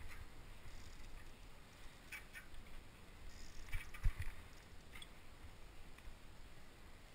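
Trials mountain bike being handled on grass: a few light clicks and knocks from the bike, and one dull thump about four seconds in as a wheel comes down on the turf.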